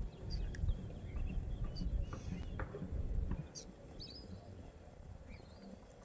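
Scattered short bird chirps over a low rumble that fades out about three seconds in.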